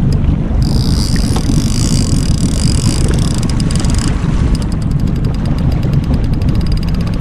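Steady low rumble of wind on the microphone and the boat running on open water, with a fast, even train of light ticks; a high hiss comes in about half a second in and stops around four seconds.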